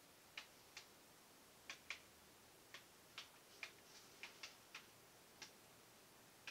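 Near silence broken by about a dozen faint, sharp ticks at irregular intervals.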